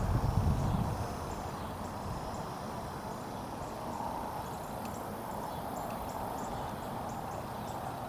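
Steady rush of shallow river water running over rock ledges, with a low rumble of wind on the microphone during the first second and faint high ticks scattered throughout.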